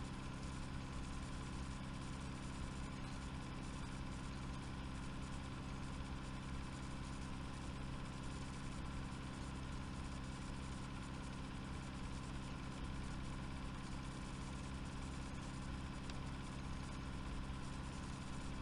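Steady low hum made of several constant tones, under an even hiss, with no change.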